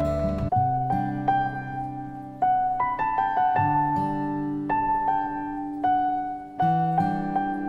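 Slow piano music: notes and chords struck about once a second, each left to ring and fade.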